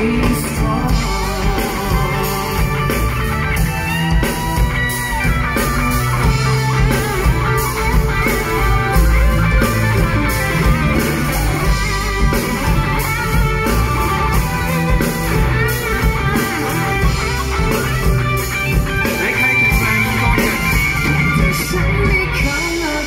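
Live rock band playing an instrumental break with no singing: guitar over bass guitar and drums, loud and steady.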